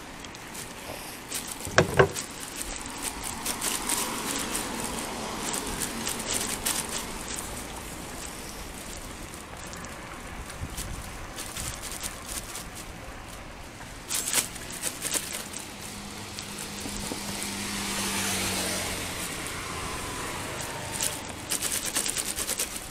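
Road traffic and riding noise along a roadside cycle path, with a steady rumbling haze. There is a sharp knock about two seconds in, a quick run of clicks around fourteen seconds, and one vehicle passing louder with a hum and a falling pitch toward the end.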